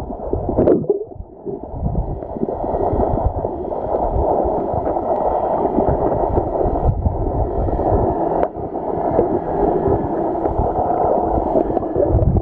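Muffled underwater sound of water churning and gurgling around a submerged camera, steady and dull, with a couple of brief knocks.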